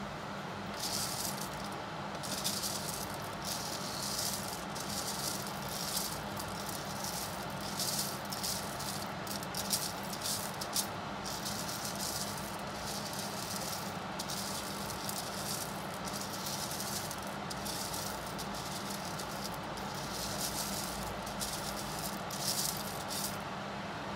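Roasted coffee beans rattling against each other and the stainless steel bowl of a coffee bean cooler as they are stirred with a wooden spoon, in irregular crackly surges. Under it runs the cooler's steady fan hum.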